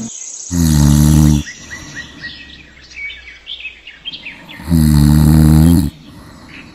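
Cartoon snoring sound effect: two long snores about four seconds apart, with birds chirping in the pause between them.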